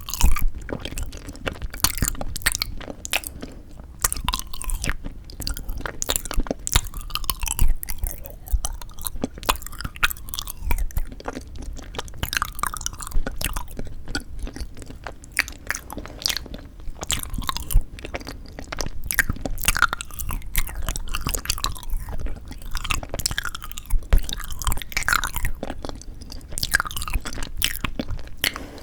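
Close-miked chewing and biting of frozen sweet red bean jelly (yanggaeng), rolled around in the mouth, with many quick wet mouth clicks.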